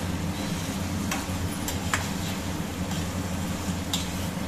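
Steel spoon stirring prawns in a metal kadai, clinking against the pan about four times over a steady low hum.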